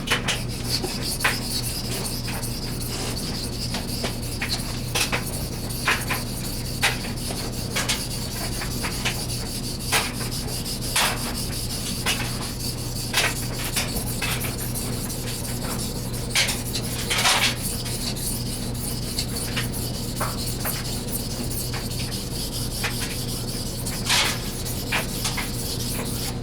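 Steel knife blade stroked back and forth on a King 1000-grit water stone, a steady wet rubbing with a short tick about once a second as the strokes change direction, while the edge is ground thinner at a low angle.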